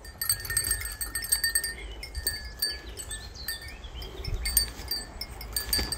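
A small metal bell on a goat's collar jingling in irregular clinks as the goat moves and shakes its head.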